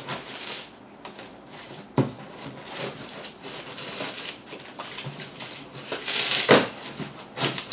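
A glued cardboard box being forced and torn open by hand: scraping and crinkling of the cardboard, with a louder rip about six and a half seconds in.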